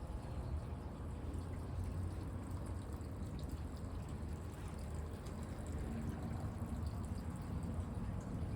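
Steady trickle of running water over a low, steady rumble.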